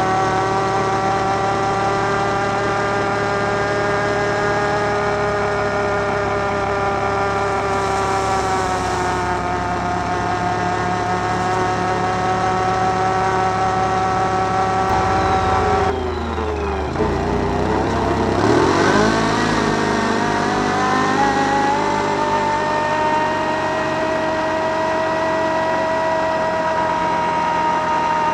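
Can-Am Outlander 1000 ATV's V-twin engine running steadily under way. About halfway through the throttle eases off and the engine note drops, then it revs back up and settles into a steady run again.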